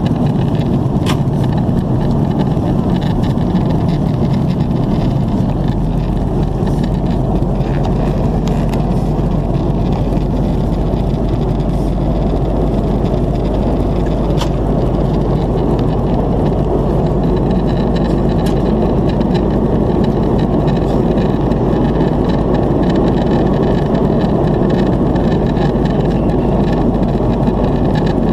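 Steady cabin noise inside an Airbus A330-300 at high altitude: the low rush of air along the fuselage and the hum of its GE CF6 engines, with a few faint clicks.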